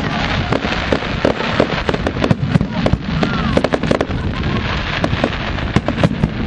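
Aerial firework shells bursting in quick succession, a dense, continuous run of bangs and crackling.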